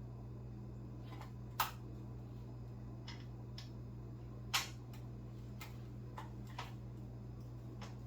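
Scattered light clicks and knocks of metal motorcycle parts being handled, two sharper ones about one and a half and four and a half seconds in, over a steady low hum.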